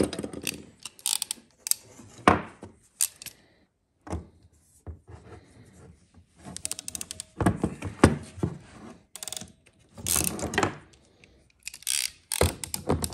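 Pinch-clamp crimping tool closing a clamp onto a brass fitting in blue PEX air line, amid irregular clicks, knocks and clatter of tools and fittings handled on a wooden workbench.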